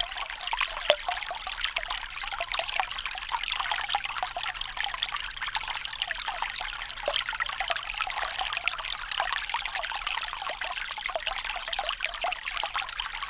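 Small stream of water flowing steadily over stones, rippling and trickling with many small quick splashes.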